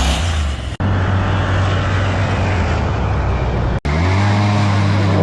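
Motor engine running loudly at a steady pitch, cut off abruptly about a second in and again near four seconds, as separate clips joined together.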